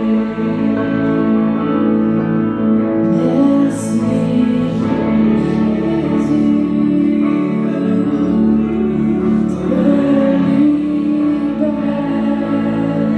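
Live worship band playing a praise song: a woman singing over electric guitar and keyboard.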